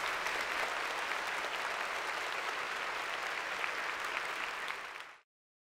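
Conference audience applauding steadily, cut off abruptly a little after five seconds in.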